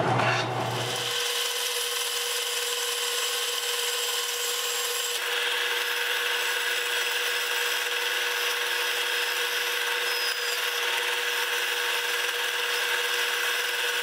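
An old 10-inch Delta bandsaw running while its blade cuts a small wooden corner template by hand. It makes a steady, even rasp of the cut over a constant whine, growing a little brighter about five seconds in.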